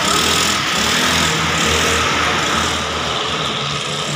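A scooter's GY6 single-cylinder four-stroke engine, fitted with a racing cam, running as the scooter pulls away, under a steady wash of road noise.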